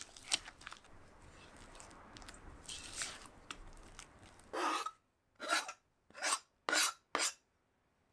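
Rasping scrapes of baking prep work: scattered scraping and clicks at first, then five short, separate scraping strokes in the second half.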